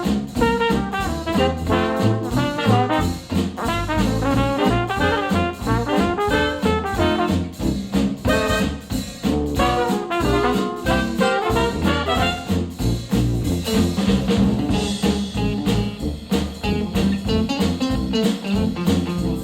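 Jazz instrumental with brass (trumpet and trombone) over a steady drum beat, played back through KEF R3 bookshelf speakers driven by an IOTAVX SA3 integrated amplifier.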